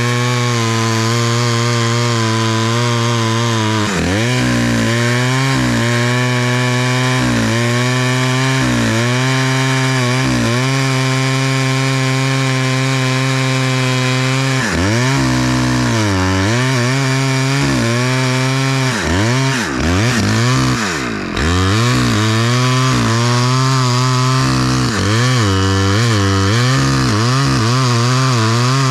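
Small two-stroke Stihl chainsaw running at high revs while cutting ash wood, its engine note dipping and recovering several times as the chain bites and the throttle eases, with the deepest drop about three-quarters of the way through.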